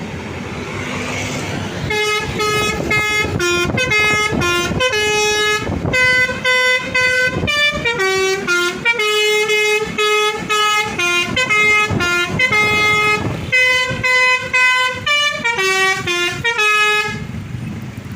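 Basuri telolet musical horn on a bus playing a tune of stepped notes, some short and some held, starting about two seconds in and stopping near the end, over engine and road noise.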